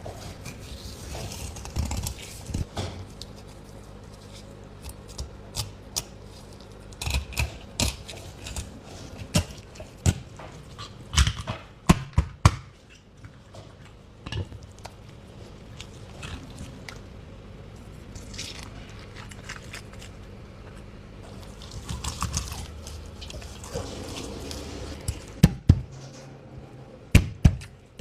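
Knife and fish being worked on a cutting board during filleting: irregular sharp knocks and taps over a low steady hum, with a cluster of louder ones about halfway and a few more near the end.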